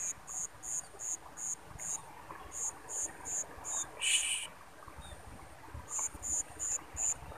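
An insect chirping in short high-pitched pulses, about three a second, in runs broken by short pauses, with one brief harsher burst about four seconds in.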